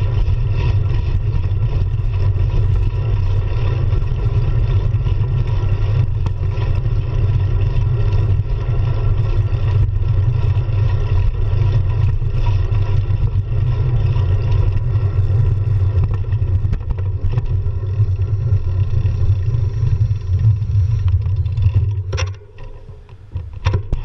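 Wind buffeting the microphone of a handlebar-mounted action camera on a moving road bike, with tyre and road noise: a loud, steady low rumble. Near the end it drops away as the bike slows, leaving a few short clicks.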